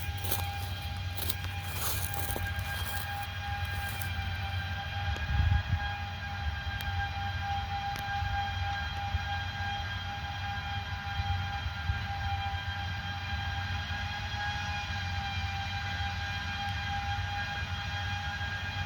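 Farm machinery heard from inside the cab: a low engine rumble under a steady high whine. There are crackling clicks over the first few seconds and a brief bump about five seconds in.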